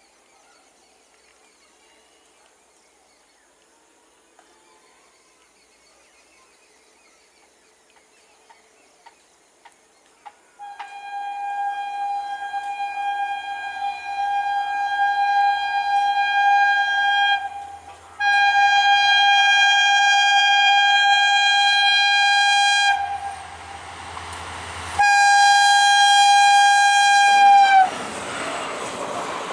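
Quiet trackside ambience with a few faint clicks, then a WDP4D diesel locomotive's horn sounding three long, steady blasts as the express approaches at speed. The pitch of the last blast drops as the locomotive passes, and the rush of the passing train follows near the end.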